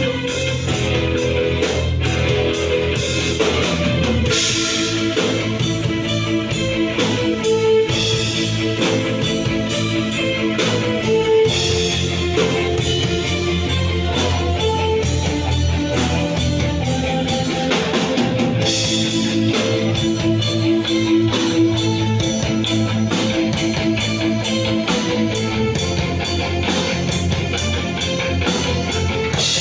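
Rock band playing live: electric guitar over a drum kit, steady and loud.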